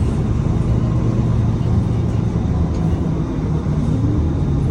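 2015 Nova Bus LFS city bus running, a steady low engine and road rumble with a tone rising in pitch near the end.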